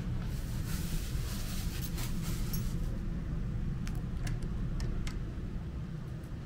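A steady low hum with soft rustling, then a few sharp clicks about four to five seconds in as the electronic card-key lock on the room door unlocks and its lever handle is turned.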